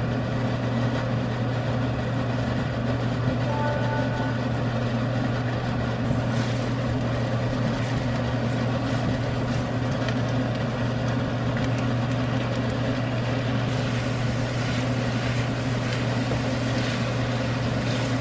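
Pork belly sizzling in a frying pan over a steady low hum, with a spatula now and then scraping and stirring in the pan.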